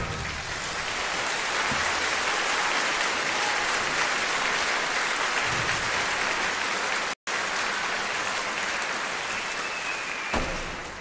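Theatre audience applauding steadily, dying down near the end.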